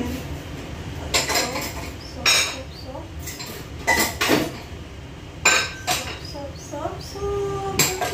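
Kitchen cookware and utensils knocked together in a string of sharp clinks and clanks, about seven strikes with brief ringing.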